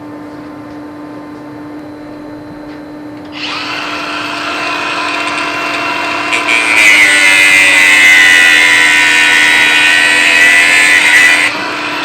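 An electric power tool cutting through a heavy battery cable. Its motor starts about three seconds in, gets much louder and harsher under load for about four seconds, then is switched off and winds down, dropping in pitch.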